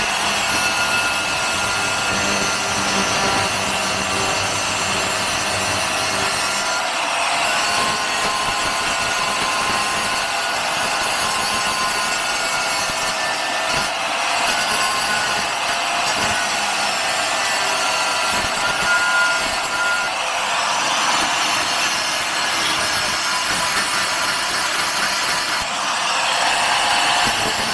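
Angle grinder running continuously against the rusty steel of a car floor pan, its motor whine wavering slightly under load, with brief lulls every several seconds.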